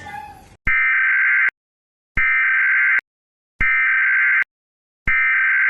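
Electronic beeper sounding four times, each steady beep just under a second long, about a second and a half apart, with dead silence between them.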